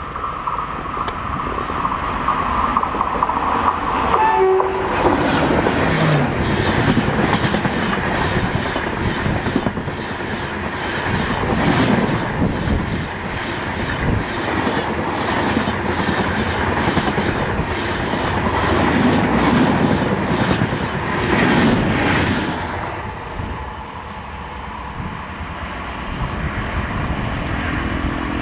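An Indian Railways electric locomotive sounds a long, steady horn blast that stops about four seconds in. Then the passenger train rushes past close by at speed, its wheels clattering rhythmically over the rail joints. The sound fades as the train draws away around the curve.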